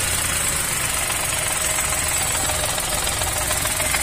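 Chevrolet Onix three-cylinder engine idling, heard from under the car at the gearbox, with a rattle from the clutch while the pedal is released: loose damper springs in the hub of the Helper-brand clutch disc.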